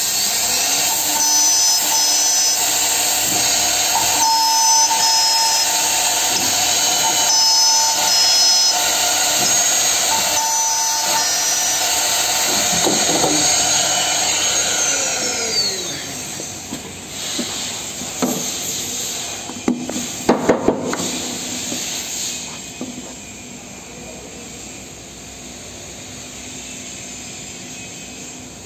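Holztek HT-2500B2 two-head horizontal drilling machine running with a steady hiss, as the drill heads whine through four drilling strokes about three seconds apart. Around halfway the spindles wind down with a falling pitch. A few sharp knocks follow, and then the machine runs on at a quieter hum.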